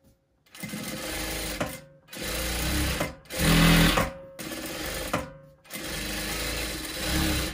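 Tysew industrial lockstitch sewing machine stitching fabric in about five short runs, stopping briefly between them and starting again.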